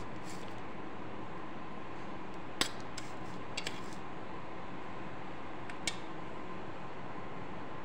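Stainless steel spoon and steel bowls clinking a few times, the sharpest clink about two and a half seconds in and another near six seconds, over a steady background hiss.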